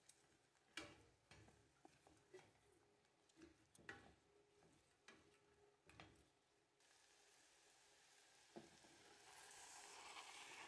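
Wooden spoon stirring chicken and carrots in a stainless steel pot, knocking against the pot about six times. In the last few seconds a quiet hiss builds as blended tomato is poured into the hot pot and sizzles.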